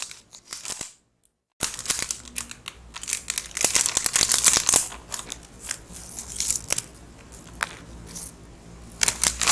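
Plastic potato-chip bag crinkling as it is torn open and handled, a dense run of crackling and rustling that is loudest in the middle. There is a moment of dead silence near the start.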